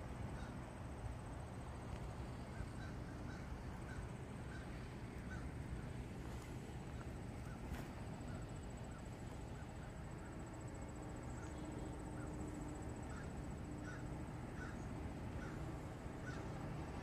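Freight cars (covered hoppers and tank cars) rolling slowly past on jointed track: a quiet, steady low rumble of wheels on rail, with faint short high notes about every second.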